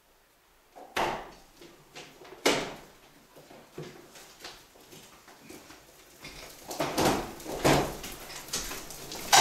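Platform trolley loaded with a tub of clay being wheeled over the floor: wheels rumbling, with a series of knocks and clatters, the loudest about a second in, at two and a half seconds, and twice around seven seconds.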